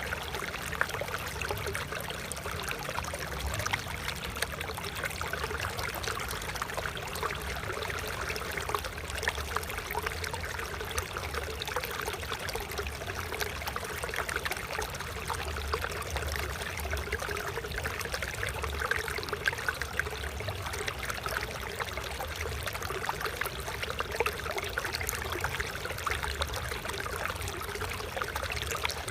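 Water flowing and trickling steadily, a calm stream babbling over stones.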